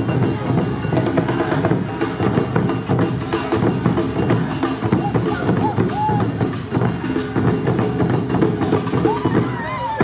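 Awa Odori drum troupe beating large strap-slung taiko drums with sticks in a fast, steady, driving rhythm, with a few short high sliding notes near the end.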